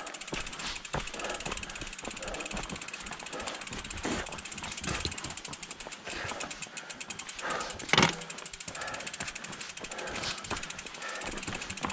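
Mountain bike being walked over rocky ground: rapid clicking and rattling from the bike, with one loud knock about eight seconds in.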